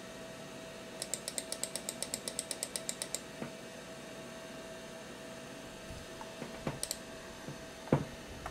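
Computer mouse and machine clicks at a compact Macintosh: a quick run of about twenty light clicks in two seconds while the text window scrolls, then a few heavier mouse-button clicks, the loudest near the end as the Previous button is pressed. A steady faint hum runs underneath.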